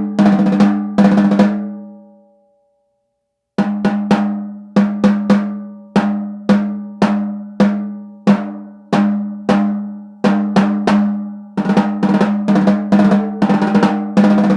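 A 14-inch snare drum tuned to about 204 Hz, struck in single hits, each ringing out with a clear pitch and a lot of overtone. After a few hits it rings down to silence. About three and a half seconds in, steady single strokes start again, coming a little faster near the end.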